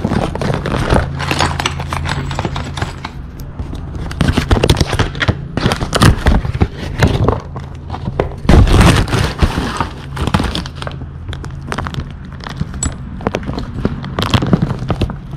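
Packing paper and plastic bags rustling and crinkling as hands rummage through a cardboard box of car parts, with scattered clicks and knocks of parts being handled and a steady low hum underneath. Near the end a clear plastic zip-top bag is crinkled as it is lifted out.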